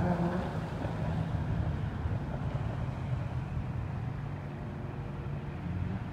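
City street traffic: a low, steady rumble of car engines on the road.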